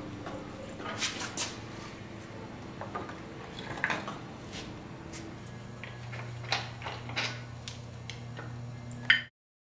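Metal tools and engine parts clinking and tapping in scattered knocks during an engine teardown, over a steady low hum. The sound cuts off suddenly near the end.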